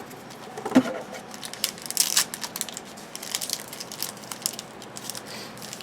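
Trading cards and their foil pack wrappers being handled: a string of soft crinkles, rustles and light clicks, with a sharper tap just under a second in.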